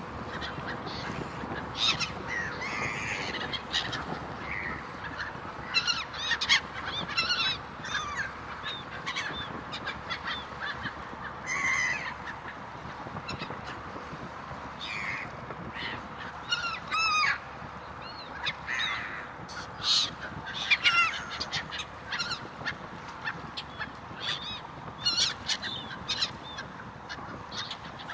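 Gulls calling over the water: many short, harsh cries, some in quick series, scattered throughout. Underneath is the steady rush and faint hum of the moving ferry.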